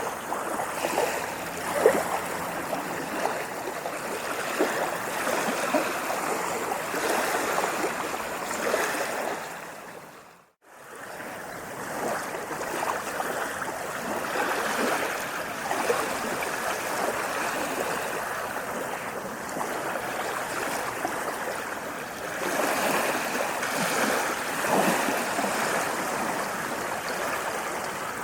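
Moving water lapping and splashing, a steady babbling rush with small splashes through it. About ten seconds in it fades out almost to silence and fades straight back in.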